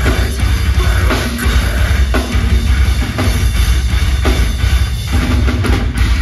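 Live metalcore band playing loud: heavy drum kit with pounding bass drum, distorted guitars and bass, with big accented hits about once a second.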